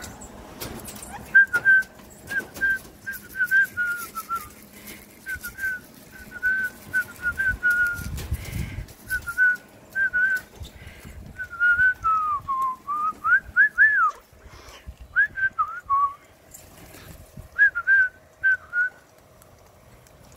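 Clear whistling: a long run of short notes around one pitch, with a falling slide and a couple of quick rising swoops midway.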